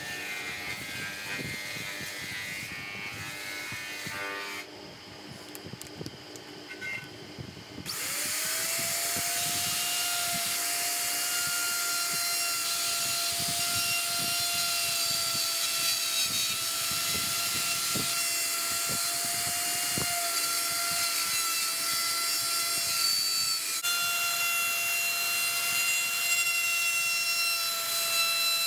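About eight seconds in, an electric plunge router starts, its pitch rising quickly to a steady high whine. It runs on while it routes into a slice of tree trunk.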